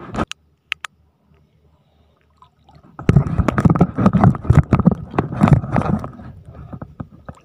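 Water splashing and sloshing as someone wades through shallow seawater, starting about three seconds in and lasting about three seconds, with a few faint clicks before it.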